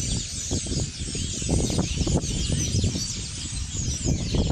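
Many small birds chirping at once, a dense chorus of short, high chirps overlapping throughout, over a steady low rumble.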